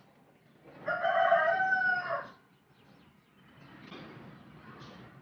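A rooster crows once, a single long held call lasting just over a second, followed by faint rustling of a cloth being rubbed.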